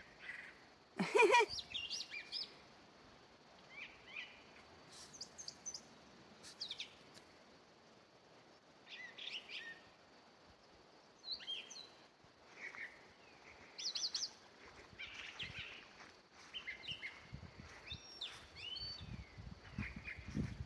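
A songbird singing in short phrases of high chirps and quick whistled notes, with pauses between phrases. About a second in, one brief loud bump is the loudest sound.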